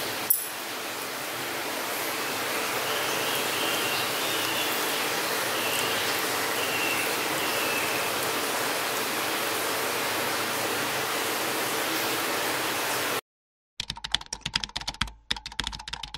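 Steady crackling sizzle of the hot, cheese-topped spicy chicken, cutting off abruptly. It is followed near the end by a rapid run of clicks in two bursts.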